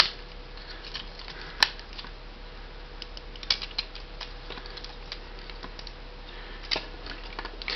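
Scattered plastic clicks and taps of a Transformers action figure's joints and parts being moved as it is posed, the sharpest about a second and a half in, over a steady low hum.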